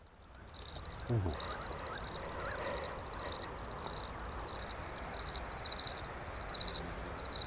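Cricket chirping steadily, about two high chirps a second.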